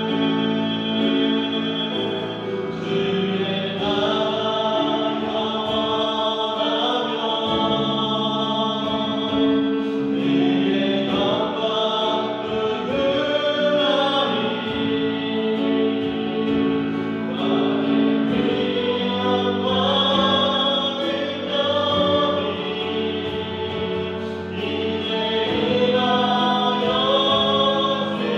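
A praise team of several voices singing a worship song together, with live band accompaniment.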